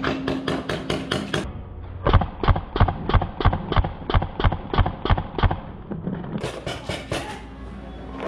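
Paintball markers firing in rapid, evenly spaced strings of shots, about four a second. A sharper string comes at the start, a longer, duller string runs from about two seconds to five and a half, and another sharp string starts near the end.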